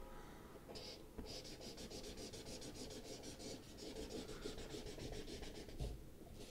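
Felt-tip marker scribbling on paper in rapid back-and-forth shading strokes, about five a second. It starts a little under a second in, pauses briefly, and stops near the end.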